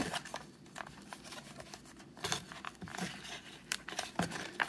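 The lighter's childproof retail packaging being handled and pried at by hand: irregular crinkling, scraping and small clicks as someone tries to get it open.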